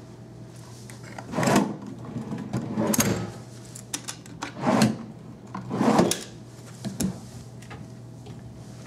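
Wooden dresser drawers being slid open and pushed shut, four main knocks about a second or so apart and a smaller one near the end.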